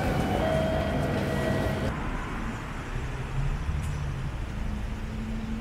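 Outdoor city traffic noise: a steady low rumble of road vehicles.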